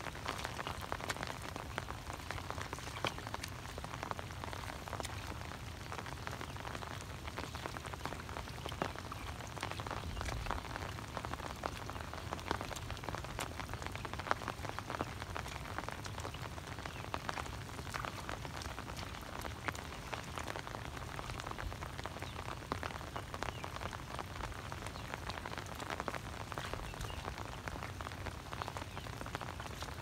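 Rain falling steadily on shallow floodwater, an even hiss made of many small, fine drop ticks.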